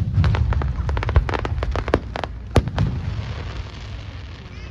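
Aerial fireworks bursting: deep rumbling booms with a quick run of sharp cracks and bangs over the first three seconds, thinning out toward the end.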